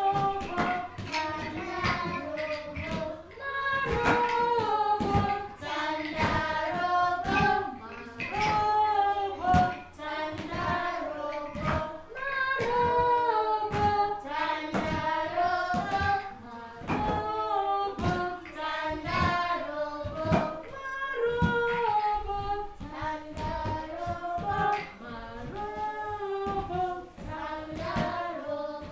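A group of young children singing a song together with a woman's voice among them, while tapping small wooden sticks on the floor in a steady beat along with the song.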